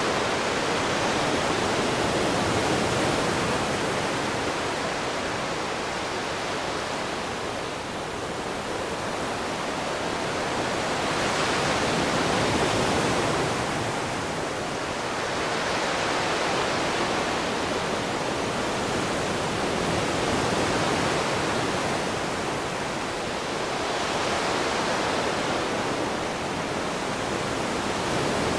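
Ocean waves breaking and washing on shore: a continuous rush of surf that swells and eases every several seconds.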